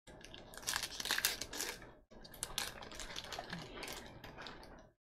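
Crinkling wrapper of a Topps Allen & Ginter trading card pack being handled and torn open by hand, a dense crackle with a short break about two seconds in.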